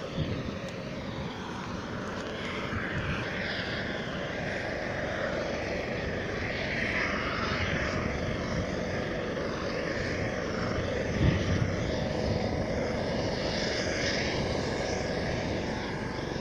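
Aircraft engine droning overhead, growing louder over the first several seconds and then holding steady, with a brief thump about eleven seconds in.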